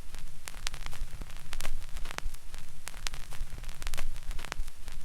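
Crackling static: a steady hiss over a low hum, broken by irregular sharp clicks.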